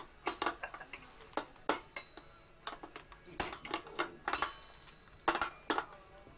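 A toddler knocking and working the pieces of a plastic baby activity toy with a small xylophone: irregular plastic clacks and knocks, several with a brief high metallic ring.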